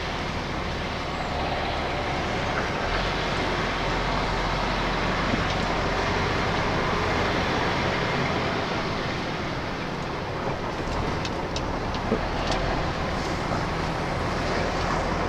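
An HGV lorry's diesel engine and road noise heard from inside the cab as it drives in at low speed, a steady rumble with a few small clicks about three-quarters of the way through.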